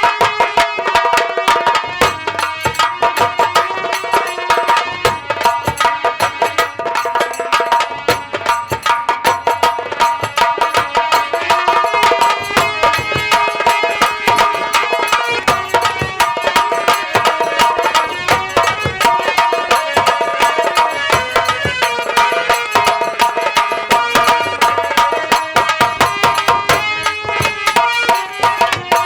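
Live instrumental folk music from a nautanki troupe's band: fast, dense hand drumming under a held melody line.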